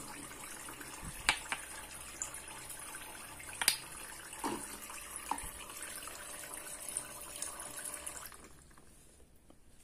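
Water trickling steadily from a toy kitchen faucet into its small plastic sink, with a few sharp clicks and knocks from plastic toy fruit pieces being handled. The water stops about eight seconds in.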